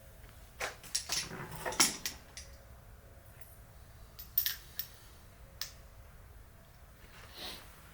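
Metal hand tools and parts clinking and tapping against each other in a quick cluster, then a few separate sharp clicks a couple of seconds later.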